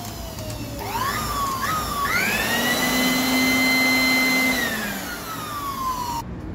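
Handheld electric blower-vacuum's motor whining: it rises in pitch in steps, holds a steady high whine for about two seconds, then winds down and cuts off near the end.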